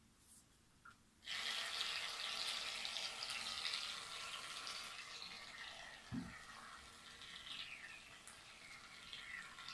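Shaving foam aerosol can spraying: a steady hiss that starts suddenly about a second in and slowly fades.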